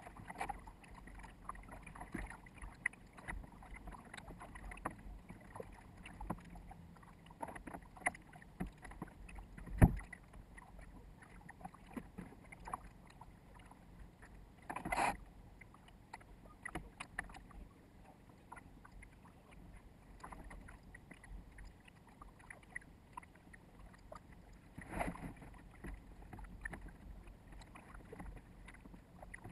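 Water slapping and rushing along a small sailboat's hull under way, with scattered small knocks and clicks. A single sharp thump comes about ten seconds in, and there are short louder bursts of splashing noise about fifteen and twenty-five seconds in.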